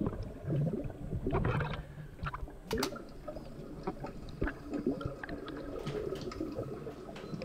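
Water sloshing and gurgling around the camera, with scattered sharp clicks and knocks.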